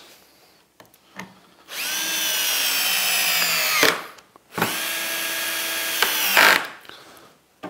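Power drill-driver driving two screws into wood, one after the other. Each run lasts about two seconds: the whine rises as the motor spins up, holds steady, then stops sharply.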